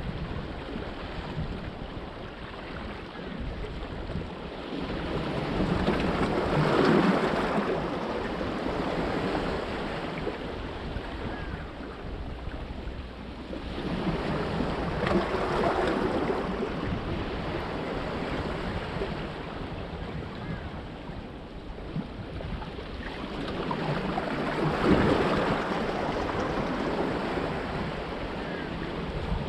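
Small sea waves washing in and draining among the large stones of a rock breakwater, swelling three times about nine seconds apart, with wind rumbling on the microphone.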